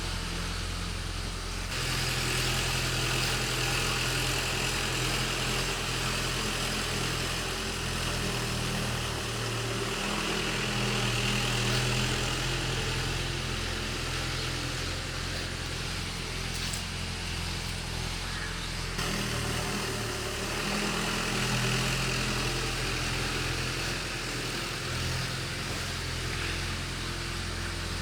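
Engine of a ploughing machine running steadily as it works the field, its note shifting up and down a few times.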